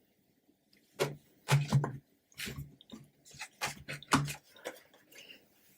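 Tarot cards being handled: a string of soft taps and light slides as cards are drawn from the deck and laid down one by one.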